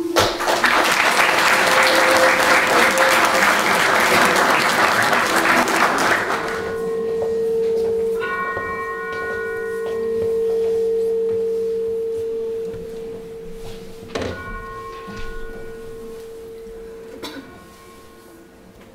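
Audience applauding for about six seconds, then a church bell tolling slowly: three strikes, each leaving a long ringing hum that fades.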